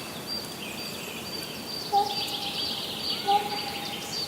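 Forest birds singing in spring: one bird repeats a short high note about twice a second while others warble and trill. Two louder, lower calls stand out, about two seconds in and again about a second later.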